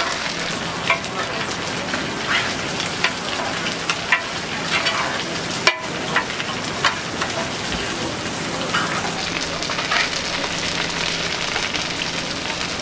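Pad Thai frying in a wide iron pan: a steady sizzle of hot oil, with metal spatulas scraping and clacking against the pan about once a second as the noodles, shrimp and egg are stirred and turned. The sound breaks off for an instant near the middle.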